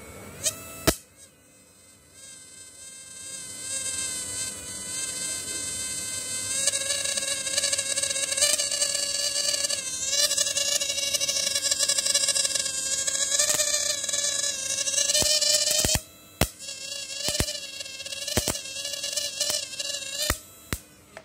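Analog 12 V to 1200 V electric-fishing inverter running with its electrodes in a bucket of water: a high-pitched electrical whine from the transformer and oscillator. After a couple of clicks at switch-on, the whine climbs in pitch and loudness over the first few seconds and then holds steady. Near the end it cuts out and back in several times.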